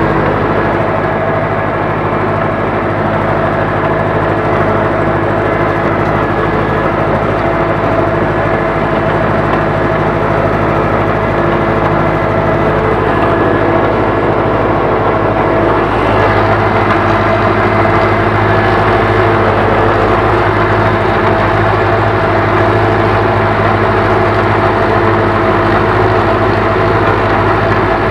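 Ursus C-4011 tractor's four-cylinder diesel engine running steadily under load while pulling a plough, heard from inside the cab. Its note changes slightly about halfway through.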